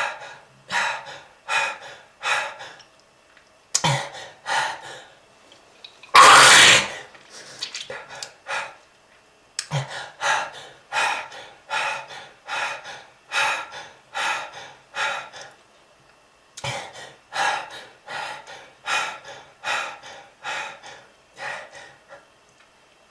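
A smoker coughing in repeated fits of short coughs, about two a second, with brief pauses between fits. One longer, louder hacking cough comes about six seconds in.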